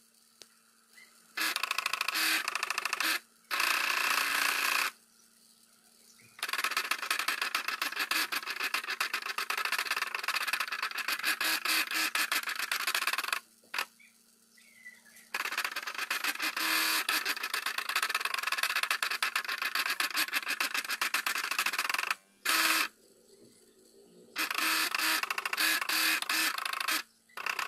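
Upcycled printer's DC motors, driven through an H-bridge, running the pen plotter's carriage and paper feed in bursts with a dense buzzing rattle. The runs last from about one to seven seconds, with pauses of a second or two between moves. A steady low hum sits underneath throughout.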